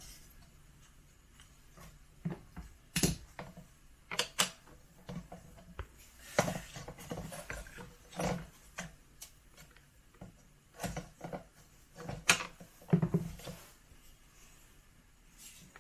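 Irregular clicks, knocks and short scrapes from an Instant Pot's base parts being handled and worked at to free a stuck part.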